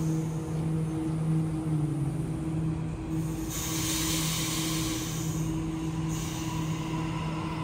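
Sydney Trains Waratah double-deck electric train running past the platform: a steady electric motor hum, with a hiss of moving carriages rising twice in the second half.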